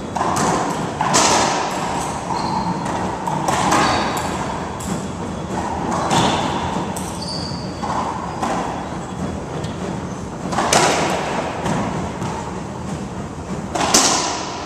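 Racquetball rally: the hollow rubber ball struck by racquets and smacking off the court walls, each hit echoing in the enclosed court, a hit every two seconds or so.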